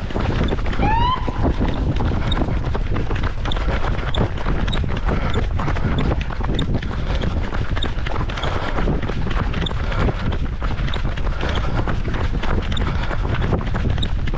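Wind buffeting the microphone of a camera carried by a runner mid-race, with a faint regular tick about every two-thirds of a second in time with his running. A brief rising squeak about a second in.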